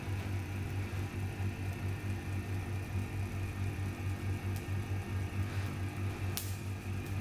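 Van de Graaff generator running, its motor and belt making a steady hum, with a sharp click about six seconds in and a fainter one midway.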